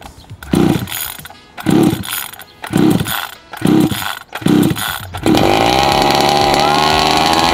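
36cc two-stroke petrol engine of a large RC buggy being pull-started: five hard yanks on the recoil starter cord, about one a second, then the engine catches and runs steadily at idle.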